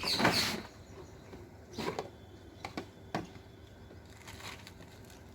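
Kitchen handling noises as a refrigerator is opened and the chilled dough is taken out: a short rustle at the start, then a few light knocks and clicks.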